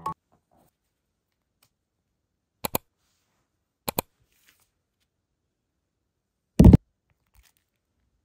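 Sparse handling sounds from a photobook album and its photo card: two pairs of light clicks, then a single louder dull thump about two-thirds of the way through.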